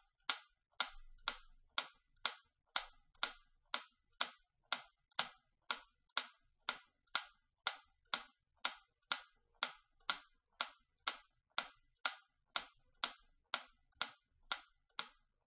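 Clock ticking steadily, about two even ticks a second.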